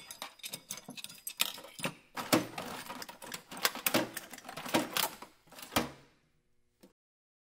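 A run of sharp, irregular clicks and ticks, like typewriter keys, that stops about six seconds in, with one last click near the end.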